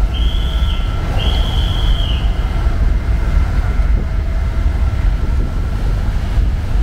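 A ferry's engines running with a steady low rumble during docking, with two high, flat squeals in the first three seconds, the second one longer.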